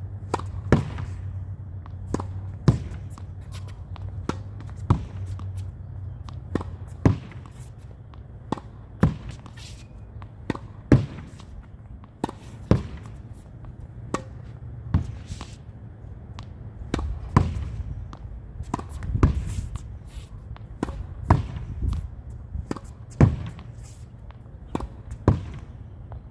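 Tennis ball being hit against a practice backboard: sharp racket thwacks and the ball smacking the wall and bouncing, with a loud hit about every two seconds throughout.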